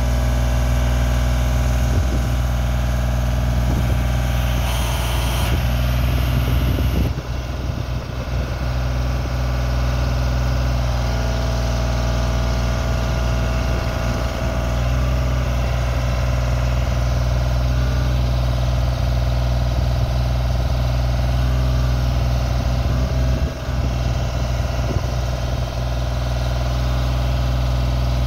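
Genie S-45 boom lift's engine running steadily while the boom is raised, its note shifting slightly a few times.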